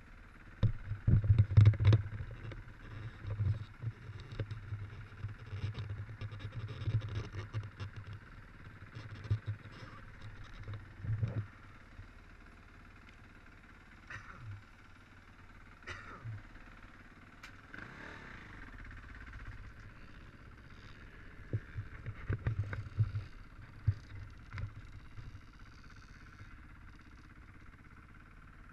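Irregular gusts of wind rumble and knocks on a wearable camera's microphone, loudest in the first few seconds and again past the twenty-second mark, over a faint steady hiss. Dirt bikes sound faintly in the distance.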